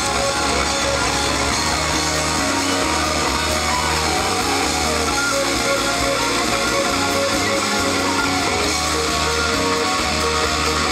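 Live rock band playing at concert volume: guitar over a bass line of held notes that change every second or two, at a steady level.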